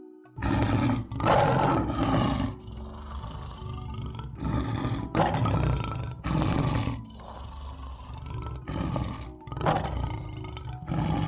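Lion roaring: a series of deep roars and grunts in repeated bouts about a second apart, starting half a second in, with the loudest bouts early on.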